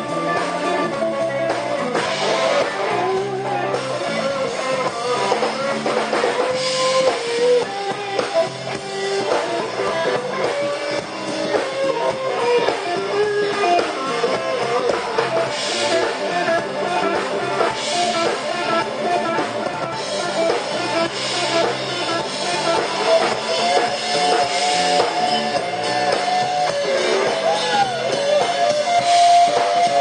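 Live rock band playing: electric guitar and bass guitar over a drum kit, with a bending, held lead line on top.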